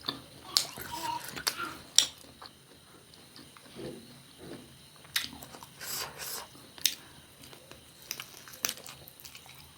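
Close-up eating sounds: crunchy bites and chewing of fried food, with sharp crunches scattered through, the loudest about two seconds in.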